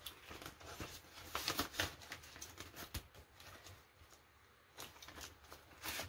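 Paper banknotes rustling and crackling as bills are handled, counted and pulled from a binder's cash envelope, in quick irregular bursts with a pause of about a second and a half near the middle.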